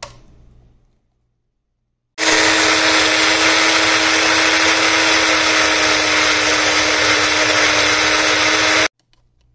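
Electric blender running at a steady speed, grinding cilantro, mint and green chilies into a sauce. It starts suddenly about two seconds in, runs for about seven seconds, and stops abruptly.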